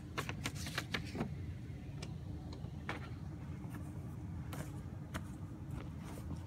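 Handling noise as the phone and papers are moved about: a quick run of clicks and rustles in the first second or so, then a few scattered ones, over a steady low rumble.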